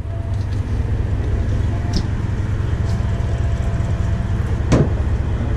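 A boat's engine running with a steady low drone. There is a faint click about two seconds in and a sharp knock near the end.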